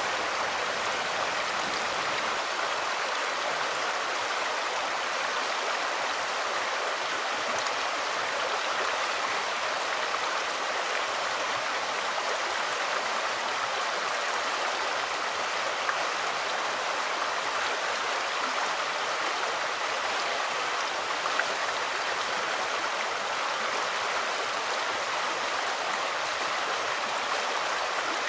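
Steady rush of a stream's running water, an even hiss that does not change.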